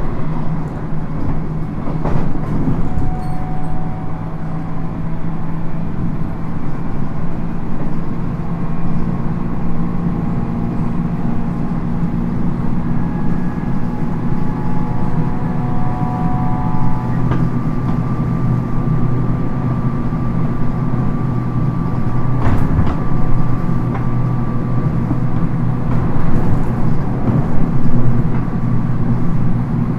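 Inside a JR 719 series electric multiple unit running at speed. The wheels and motors give a steady low rumble and hum, with faint held whining tones that come and go, and a couple of sharp knocks from the rough track.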